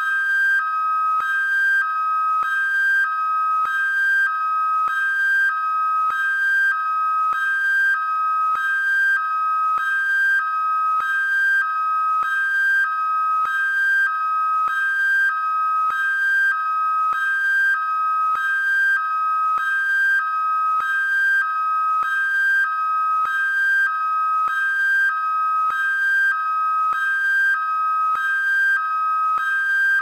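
American police car's hi-lo electronic siren: two tones, one higher and one lower, taking turns, each held for a little over half a second.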